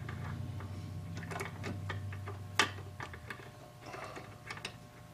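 Small irregular metallic clicks and taps from handling a brass clock plate and its clamps on a rebushing machine, with one sharper click about two and a half seconds in. A low steady hum runs underneath and stops about three seconds in.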